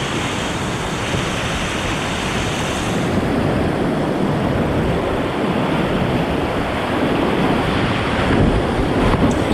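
Loud, steady rush of whitewater pouring through a creek rapid.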